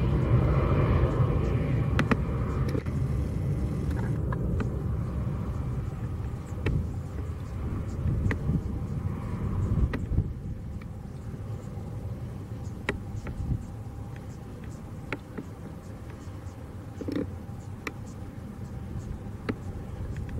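Bombardier Challenger 350 business jet climbing away, its twin Honeywell HTF7350 turbofans a low rumble that slowly fades as the aircraft recedes. A few faint clicks sound through it.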